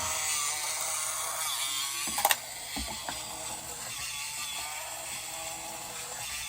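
Battery-powered plastic walking toy spider running: its small motor and gearbox whir and ratchet steadily as the legs walk. A few sharp clicks come about two seconds in, after which it runs on slightly quieter.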